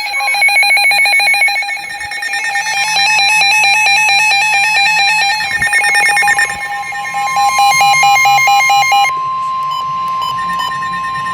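Several NOAA weather radios going off together for a severe thunderstorm warning: their alarms beep rapidly in overlapping patterns at several pitches. From about three seconds in, the steady 1050 Hz warning alert tone of the broadcast sounds under them, and near the end the beeping stops, leaving the tone alone.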